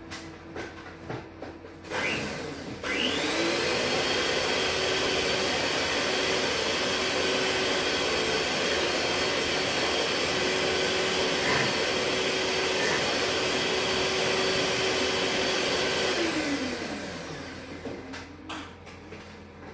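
Electric mixer beating margarine, sugar and eggs together: the motor starts about three seconds in with a rising whine, runs steadily, and winds down with a falling pitch near the end.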